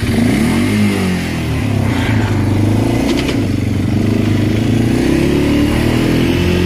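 Arctic Cat 400 ATV's single-cylinder four-stroke engine revving up as the quad pulls away, its pitch climbing over the first second, then running steadily under throttle while riding.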